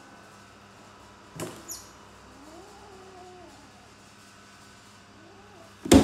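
A kitten meowing faintly in long, drawn-out meows, twice. There are two short knocks about a second and a half in, and a loud thump just before the end.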